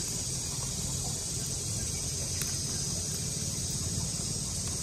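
Steady high-pitched chorus of insects, with a low rumble underneath and one faint click about halfway through.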